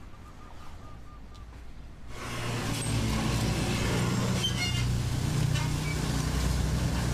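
A vehicle's engine running steadily, coming in suddenly about two seconds in over quiet street ambience.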